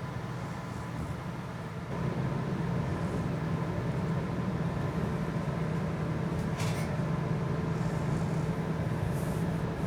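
Steady low rumble of a running vehicle, stepping up in level about two seconds in, with a brief hiss a little before seven seconds.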